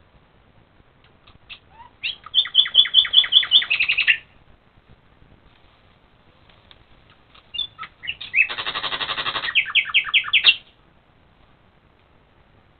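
A songbird singing at night in two loud phrases. About two seconds in comes a run of quick, repeated high notes, about six a second, ending in a lower flourish. After a pause, a second phrase starts with a few notes and a buzzy rattle, then another run of repeated notes.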